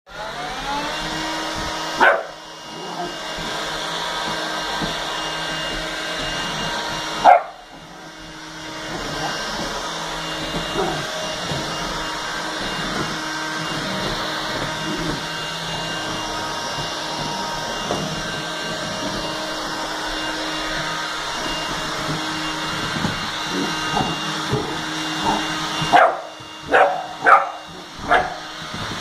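Stick vacuum cleaner motor running with a steady whine, spinning up at the start, dropping out briefly just after 7 s and then starting again. Over it a Bernese mountain dog puppy gives single sharp barks about 2 and 7 seconds in, then a quick run of several barks near the end.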